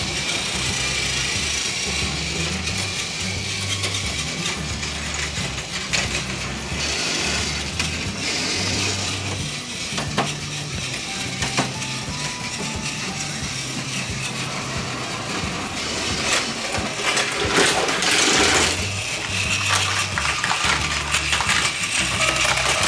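Battery-powered Thomas toy train running on plastic track: the small electric motor and gearbox whirring with the wheels rattling along the rails, louder for a couple of seconds near the end. Background music plays underneath.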